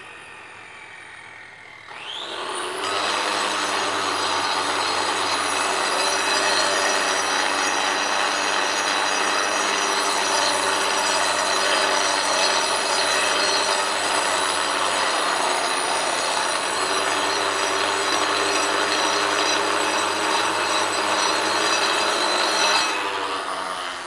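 Angle grinder with a stone-cutting blade: a winding-down whine at first, spinning back up about two seconds in, then cutting steadily into a stone block with a high whine over harsh grinding for about twenty seconds, and winding down near the end.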